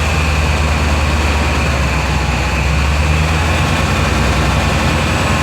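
Chevy 5.7-litre Vortec V8 running steadily, with its newly installed distributor timed to about 0 degrees of camshaft retard.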